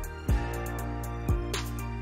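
Background music with a steady beat: a low drum about once a second under sustained bass and higher notes.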